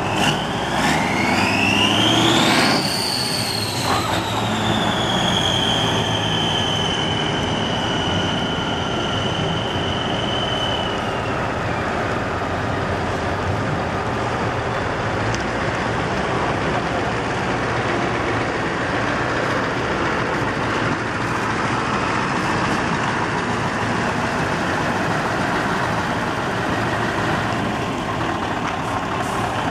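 Heavy trucks' diesel engines running as the trucks drive past. A high whine rises over the first few seconds, then slowly falls and fades out about ten seconds in.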